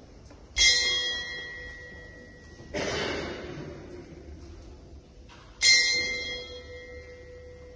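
Boxing ring bell struck twice, about five seconds apart, each strike ringing and slowly fading, as part of a ten-bell salute for the dead. Between the two strikes comes a brief rushing noise.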